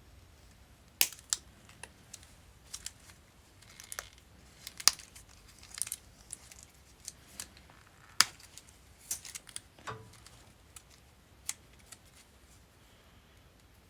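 Irregular sharp snips and cracks as brittle, 40-year-old hard plastic is cut and broken away from a motorcycle wiring harness, with light crinkling in between. The clicks thin out near the end.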